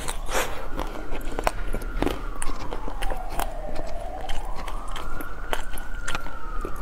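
Biting and crunching into the brittle blue shell of a white chocolate ice cream bar, with many short crisp cracks and chewing. A quieter wailing tone rises and falls slowly behind it.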